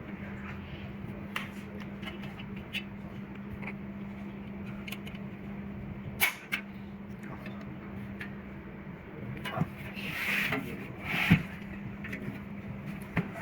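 Scattered light clicks and knocks of hose reel box parts being handled during reassembly, with a brief scraping rub about ten seconds in and a sharper knock just after. A steady low hum runs underneath.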